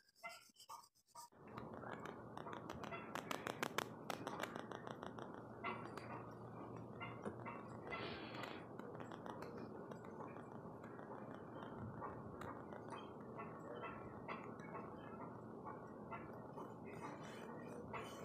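Charcoal scratching and rubbing across drawing paper while shadow areas are shaded in: dense and continuous from about a second in, with a cluster of sharper ticks a few seconds in.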